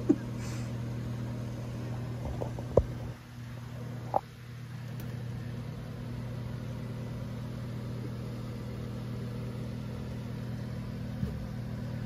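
Steady low mechanical hum, with a single light click about three seconds in and a brief high chirp a second later.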